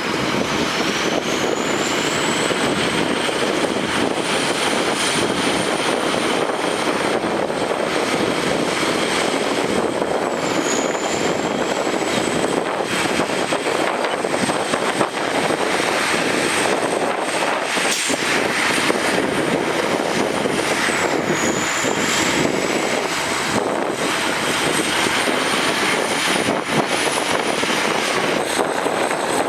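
Heavy diesel earthmoving machinery running steadily, with a thin high whine that rises, drops suddenly twice (about ten and twenty seconds in) and climbs back.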